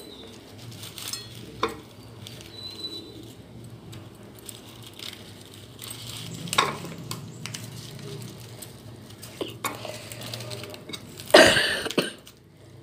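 Hands tying whole spices into a cloth bundle over a ceramic plate: soft handling noise with scattered light clicks against the plate, over a steady low hum. A louder rustling clatter comes near the end.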